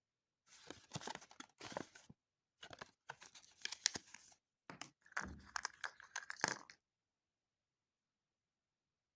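Crinkly wrapper being torn open and crumpled by hand in three bursts of crackling, as a surprise egg is unwrapped.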